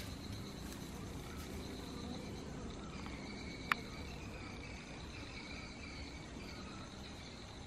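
Steady high insect trilling over a low rumble, with one sharp click a little before the middle.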